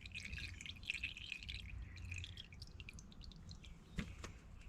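Faint, irregular drips of water falling into the water of an ultrasonic cleaner's tank, with two sharper clicks about four seconds in.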